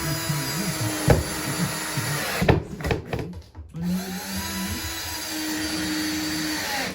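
Electric power tool motor running in two long runs, each winding up at the start, with a pause of about a second between them; its pitch steps up partway through the second run. A sharp knock comes about a second in.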